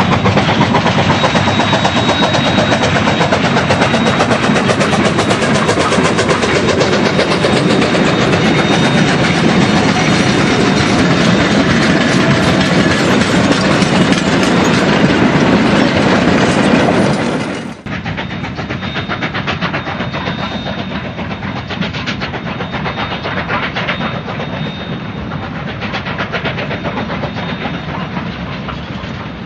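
Narrow-gauge K-36 class steam locomotive and its train running, with steady rail clatter. About two-thirds of the way through, the sound drops suddenly and carries on quieter.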